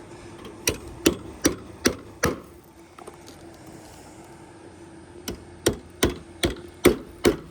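Hammer blows, five evenly spaced strikes, a pause, then six more, nailing a loose gutter back against a fascia board whose wood has gone soft.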